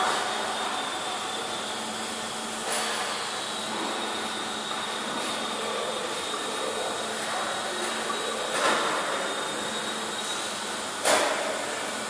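Welding arc burning steadily on a steel pipe during the cap pass, a continuous hiss with a faint high whine, with brief louder pops about 3, 9 and 11 seconds in.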